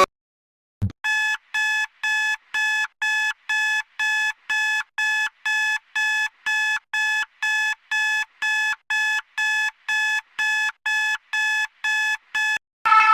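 Emergency alert tone: a buzzy electronic beep repeating evenly about twice a second for about twelve seconds, after a brief low thump. Near the end a different, steady alarm tone takes over.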